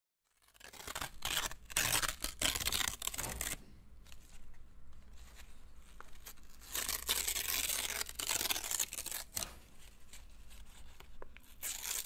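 Paper being torn and crumpled in several rough bouts, with a faint steady low hum underneath.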